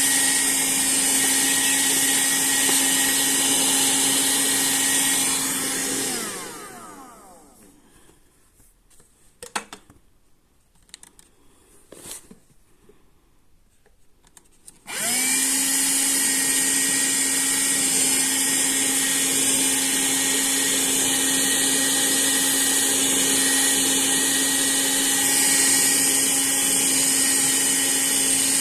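Silvercrest lithium-ion handheld vacuum cleaner running with a steady motor whine while it vacuums dust out of a cartridge filter. It is switched off about six seconds in and its motor winds down, a few small clicks and knocks follow, and about fifteen seconds in it is switched on again and quickly rises back to full speed.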